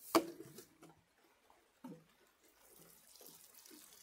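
A sharp knock just after the start as the watering can is handled, then from a little over halfway a watering can's rose pouring water onto potting compost in a metal tub, a steady soft splashing.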